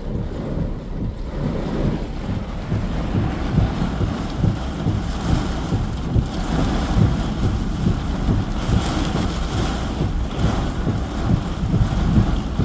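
Strong storm wind buffeting the microphone: a rough, gusting rumble that rises and falls irregularly.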